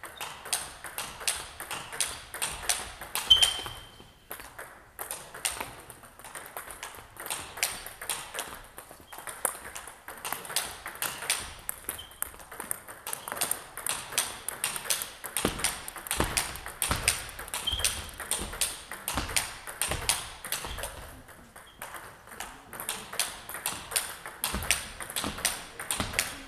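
Table tennis rally: the plastic ball clicking off the racket and table in a fast, steady rhythm of several hits a second, with barely a pause. This is a continuous footwork drill played at match tempo.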